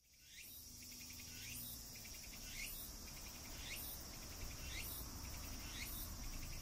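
Insect chorus fading in: a steady high buzz with a rising, pulsing call repeating about once a second.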